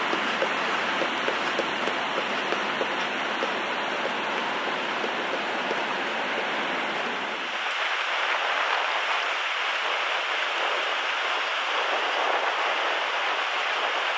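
Steady rushing of breaking surf and wind. About seven and a half seconds in it changes abruptly to a thinner, hissier rush without the low rumble.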